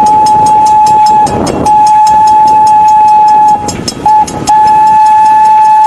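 Train sound effect: a loud, steady whistle held over a rapid rhythmic clatter of about five clicks a second, with the whistle breaking off briefly twice near the middle. It starts and stops abruptly.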